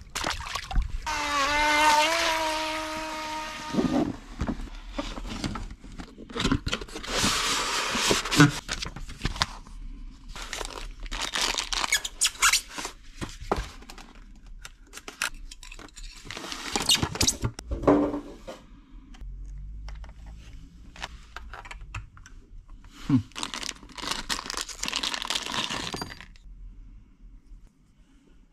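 Unboxing handling noise: plastic packaging crinkling and rustling in irregular bursts, with clicks and knocks of the plastic boat parts and transmitter being handled. Near the start there is a steady high-pitched whine lasting about three seconds.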